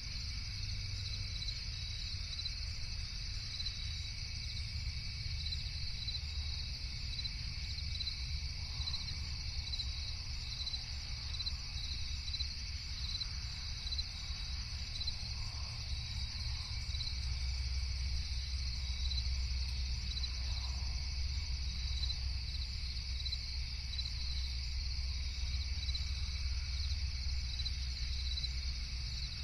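Crickets chirping in a continuous night chorus, a steady high trilling with evenly repeating pulses, over a steady low rumble.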